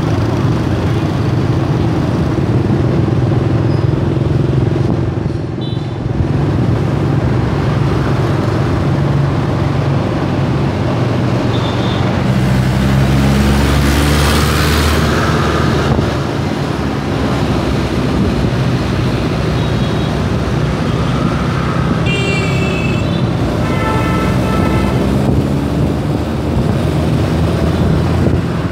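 Motor scooter engine running while riding in dense street traffic. A louder rush of passing traffic comes about halfway through, and horns toot twice near the end.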